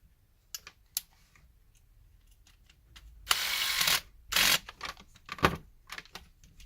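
Plastic parts of a PS4 controller being handled and fitted together during reassembly: scattered light clicks and taps, with two louder rasping scrapes a little past the middle, then more small clicks.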